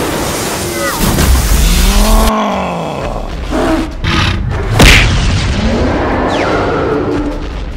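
Cartoon monster-fight soundtrack: music under monster roars whose pitch rises and falls, with a loud boom about five seconds in.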